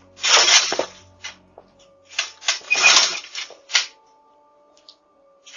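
Fence rattling and clattering as someone struggles to climb over it, in two rough bursts: one at the start and a longer run of clatters around the middle.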